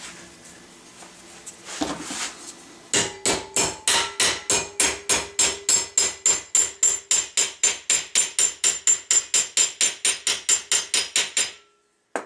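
Metal hammer tapping rapidly on a brass ramrod-thimble tab clamped in a steel bench vise, about four light ringing strikes a second, hammering the fold into a sharp corner. The hammering starts about three seconds in and stops shortly before the end.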